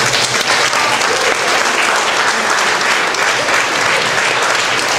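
Audience applauding steadily, a dense continuous clapping in a hall, in thanks to the orchestra and soloist at the end of the concert.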